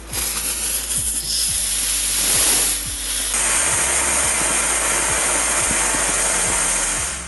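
Small potassium nitrate and sugar rocket motor in a PVC pipe casing burning on a static thrust-test stand: a loud, steady rushing hiss that starts right after ignition, dips briefly about three seconds in, then holds and cuts off a little before seven seconds in.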